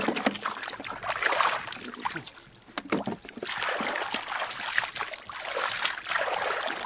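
Shallow muddy paddy water splashing and sloshing in irregular bursts as hands grope through it and legs wade, with a brief lull midway.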